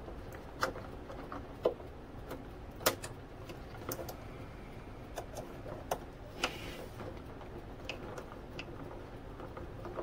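Small, irregular clicks and taps of a screwdriver and screw against the servo and its mount as a servo screw is worked into a tight spot in an RC boat hull, with a brief scrape about two-thirds of the way through.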